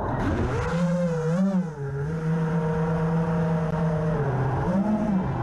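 FPV racing quadcopter's motors and propellers whining. The pitch holds steady, then rises and falls with the throttle about a second and a half in and again near the end.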